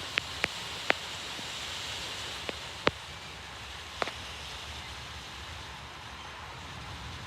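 Steady hiss of light rain with a handful of sharp single taps of drops landing close by, about six in the first four seconds.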